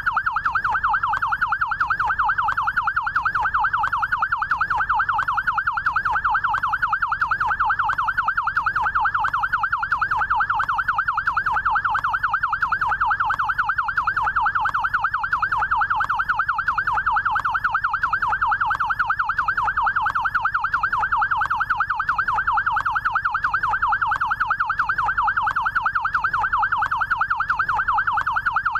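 Electronic siren of a Brazilian SAMU emergency-medical motorcycle sounding the yelp tone. It makes a fast, even up-and-down wail that repeats steadily without a break.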